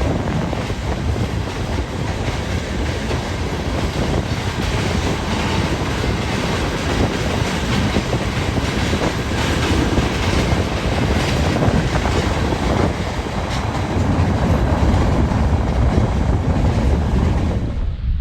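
A train crossing a railroad trestle overhead: a steady, loud rumble of wheels on the rails that cuts off suddenly near the end.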